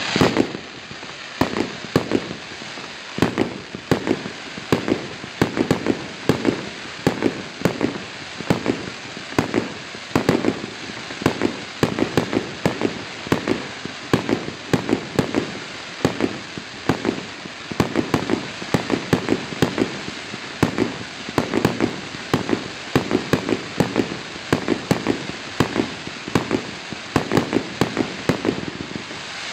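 Fireworks going off in a rapid, continuous string of bangs and crackles, several a second, over a steady hiss. The loudest bangs come right at the start.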